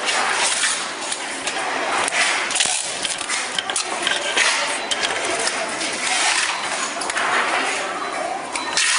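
Quick clicks and clinks of plastic transformer bobbins being handled and spun on a tape-wrapping machine, with the hiss and rustle of adhesive tape.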